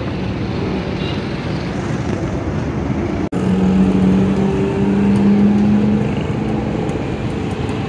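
Street traffic noise, steady and loud. The sound drops out for an instant about a third of the way in, then a vehicle engine's low steady hum comes up close for about three seconds.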